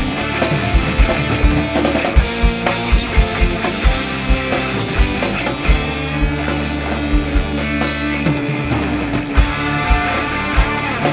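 Rock music with guitar and a steady, fast drum beat.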